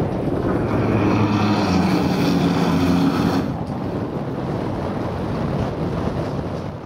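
Wind buffeting the microphone, joined for about three seconds in the first half by a steady hum from an iceboat's runners skating over the ice close by.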